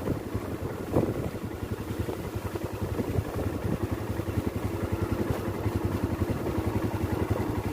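Motorcycle engine running steadily while riding, its low, rapid, even pulsing mixed with rushing air.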